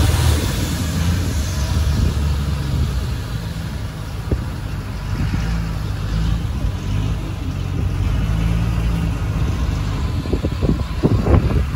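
Long-tail boat's engine running steadily under way, a low, even engine note, with water rushing along the hull and a few knocks near the end.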